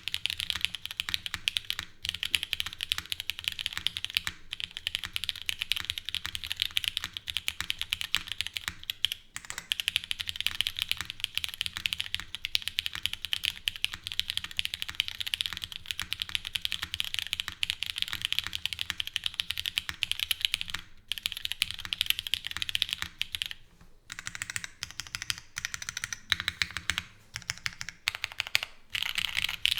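Continuous fast typing on a Dalco 959 Mini custom mechanical keyboard with lubed, filmed Cherry MX Black linear switches, DMK keycaps and an o-ring-mounted polypropylene plate with no foam. The key strokes come in a dense stream with a couple of brief breaks, then turn sparser and more separate in the last few seconds.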